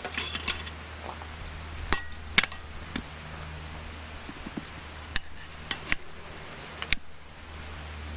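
Steel tire irons clinking and knocking against a motorcycle wheel's rim and spokes during tyre mounting: irregular sharp metallic clicks, a few close together, over a steady low hum.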